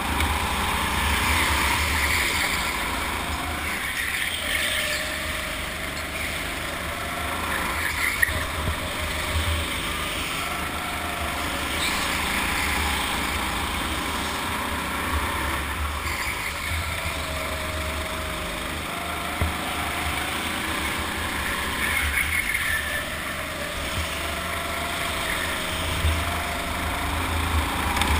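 Go-kart running at speed, its motor note rising and falling again and again as it accelerates and slows through the corners, with wind buffeting and rumbling on the mic.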